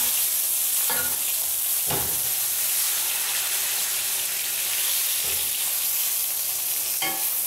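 Butter sizzling and frying in a hot cast iron skillet as a bone-in ribeye is basted, a spoon scooping the hot butter over the steak. A few short knocks of the spoon against the pan come through the steady sizzle.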